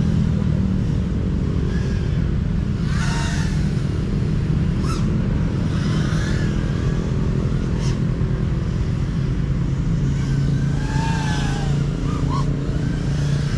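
FPV freestyle quadcopter's motors buzzing steadily as it flies, with a steady pitch that wavers slightly with throttle.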